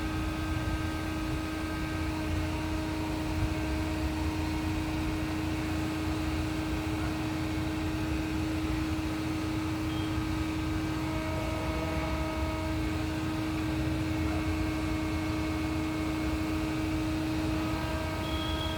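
Concrete pump running steadily: a continuous low engine rumble under a constant hum, with fainter whining tones that come and go.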